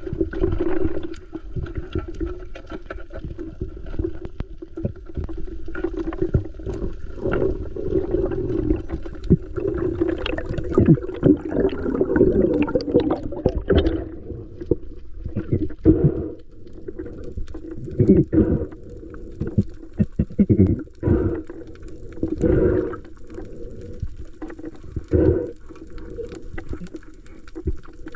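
Water sloshing and gurgling around a camera held in the sea, with a steady low hum and irregular dull thumps.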